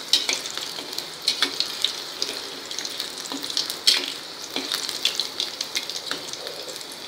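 Green chillies deep-frying in hot oil in a steel kadhai: a steady sizzle with light crackling and a few sharp pops, the loudest about four seconds in, while a steel ladle stirs them. The crackling is light because the chillies are nearly crisp; once it stops, they are done.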